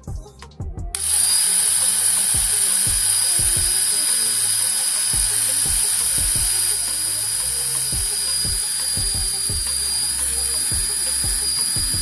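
A small high-speed electric motor starts about a second in and runs steadily with a high whine and hiss, over background music with a beat.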